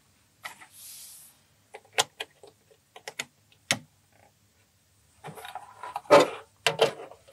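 Plastic Lego minifigures and pieces being handled and set into an acrylic display case: scattered small clicks and taps, then a busier clatter of plastic handling from about five seconds in, with one louder knock.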